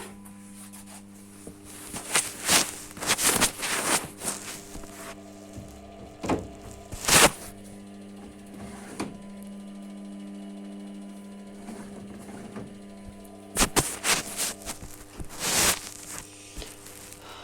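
Hotpoint washing machine tumbling laundry in the rinse cycle: the drum turns in spells, with wet washing and water sloshing and thudding about two to four seconds in, twice more around six to seven seconds, and again near the end. A steady motor hum runs under it, with a quieter pause in the middle.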